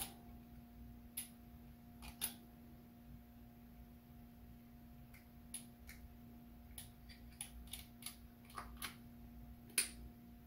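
Snap ring pliers working a steel snap ring onto a Warn manual locking hub, giving faint, scattered metal clicks and ticks. The sharpest click comes near the end. A faint steady hum runs underneath.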